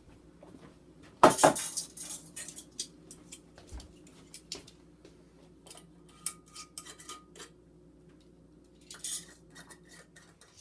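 Metal canning lids and screw bands clinking and tapping against glass mason jars as they are fitted, with a loud clatter about a second in and scattered lighter clinks after, one briefly ringing.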